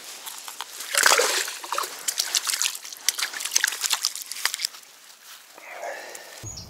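Crucian carp thrashing in shallow water at the bank: a burst of splashing and sloshing starts about a second in, goes on in quick sharp slaps for some three seconds, then dies down.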